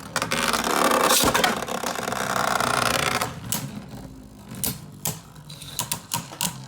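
Two Beyblade spinning tops whirring and clashing in a plastic Beystadium: a loud, fast whirr for about the first three seconds, then quieter spinning with scattered clacks as the tops hit each other and the stadium wall.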